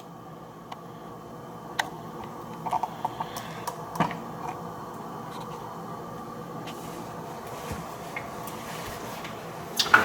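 A few light clicks and taps of plastic dishwasher filter parts being handled and fitted, the clearest about four seconds in, over a steady low hum.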